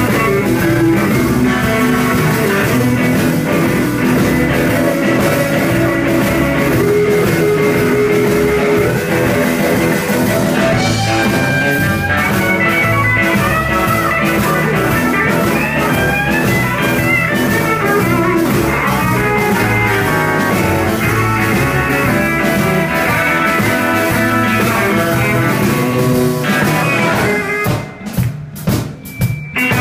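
Live blues band of two electric guitars, bass guitar and drum kit playing an instrumental passage, a lead guitar soloing with bent notes over the rhythm section. Near the end the playing breaks up into sharp separate hits with short gaps between them.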